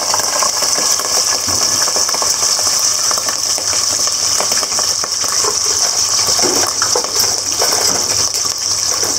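Hot oil in a deep-frying pot sizzling loudly with a dense crackle as a batch of small freshwater shrimp fries in it.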